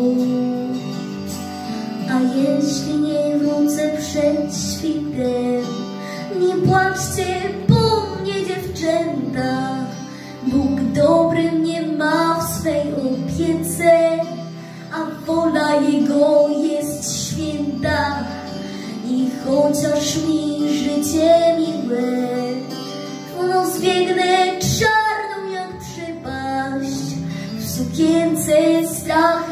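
A young girl singing a Polish patriotic song over a backing track.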